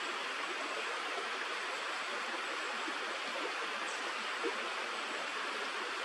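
Steady, even rush of stream water.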